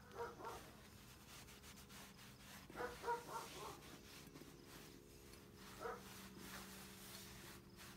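A dog barking faintly in short runs: a few barks at the start, a quick run of four about three seconds in, and one more about six seconds in, over a faint steady hum.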